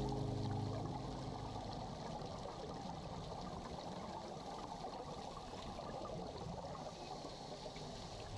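Underwater ambient sound picked up by a dive camera in its housing: a steady crackling, gurgling hiss of water.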